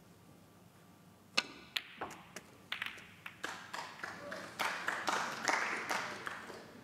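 Snooker balls clicking sharply as the cue ball strikes a red, which is potted. Then scattered claps build into brief audience applause that fades before the end.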